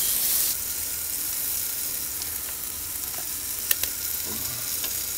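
Chicken thighs sizzling on the hot wire rack of a Cobb grill over lit charcoal heat beads, fat dripping onto the coals. The sizzle is a steady hiss, loudest in the first half second, with two short clicks a little before four seconds in.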